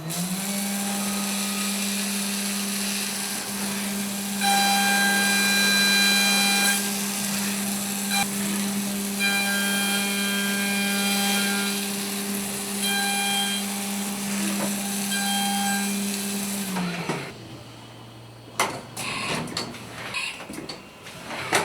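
CNC milling machine spindle starting up and running with a steady whine, with higher ringing tones that come and go. About seventeen seconds in, the spindle winds down, falling in pitch, followed by a few scattered knocks and clatters.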